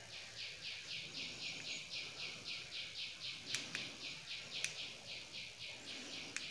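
Rhythmic high-pitched chirping, about five chirps a second, that stops shortly before the end. A couple of faint clicks fall about halfway through.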